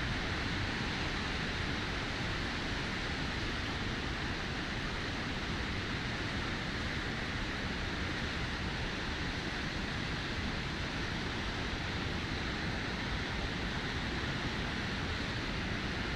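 Steady, even rushing noise that does not change, with no distinct events.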